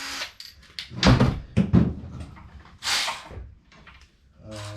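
Knocks and clunks of metal bike parts being handled while a brake caliper is fitted, with two loud knocks a little over a second in and a short hissing rustle about three seconds in.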